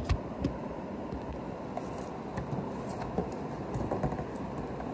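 A toy's packaging box being forced open by hand from the back: scattered clicks, scrapes and rustles of the box, with two sharper clicks near the start, over a steady low background noise.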